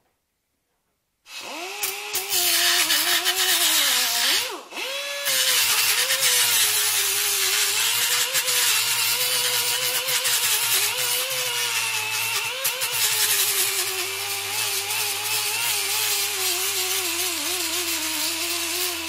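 Small handheld rotary sanding tool running and grinding down a plastic weld on a car's plastic timing belt cover, its motor pitch wavering as it is pressed on the work. It starts about a second in, cuts out briefly near the five-second mark, then runs on steadily.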